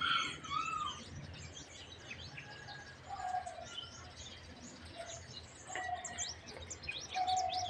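Many small birds chirping in quick, high, twittering calls, with a few lower, briefly held notes now and then.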